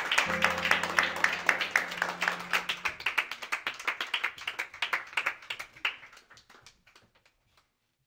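A small group of people clapping by hand, the individual claps distinct and irregular, the applause gradually dying away to silence over about six seconds. A low steady hum runs under the first three seconds.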